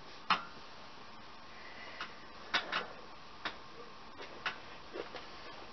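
A handful of light, irregular clicks and taps from craft supplies being handled, while the next piece of trim is fetched.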